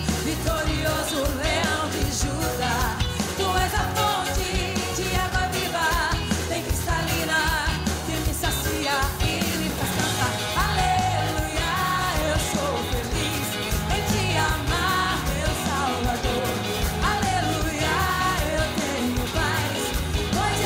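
Live band music with a percussion group playing a driving beat on drums, and a woman's voice singing over it.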